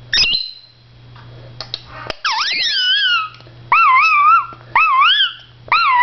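A blue Indian ringneck parrot vocalizing at its mirror image. There is a short high chirp at the start, then from about two seconds in a series of four loud, warbling calls whose pitch swoops up and down.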